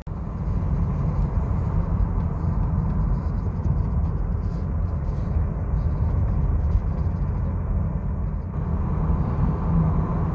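Car driving up a paved mountain road: a steady low rumble of engine and tyre noise.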